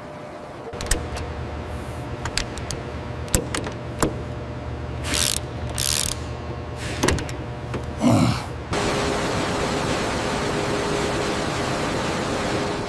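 Power tool driving a bolt: a low motor hum with ratcheting clicks and several short bursts. About nine seconds in, it gives way to a steady hiss.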